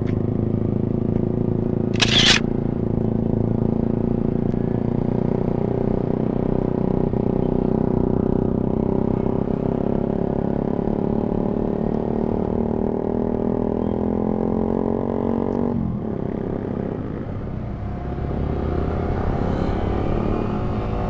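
Motorcycle engine running at a steady pitch while riding, with a brief sharp noise about two seconds in. Around sixteen seconds the engine note drops suddenly, then it builds again near the end.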